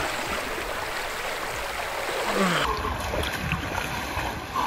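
A rain-swollen river rushing steadily, with water sloshing around a person wading in up to the thighs.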